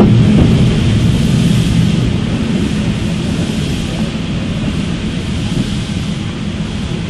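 Lancashire & Yorkshire Railway 0-6-0 steam locomotive No. 957 moving off, its working steam noise fading steadily as it draws away.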